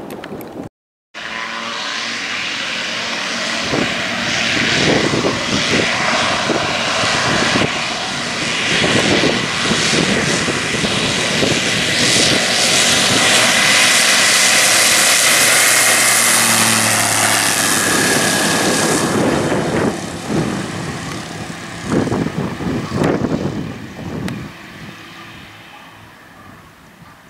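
Piston engine and propeller of a single-engine light aircraft at full power on its takeoff run. It grows louder to a peak about halfway through, drops slightly in pitch as it passes, then fades away, with gusts of wind on the microphone.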